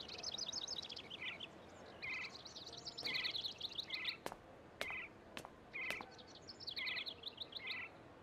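Small songbird chirping and twittering: fast high trills broken by short repeated chirps, with four sharp clicks about half a second apart near the middle.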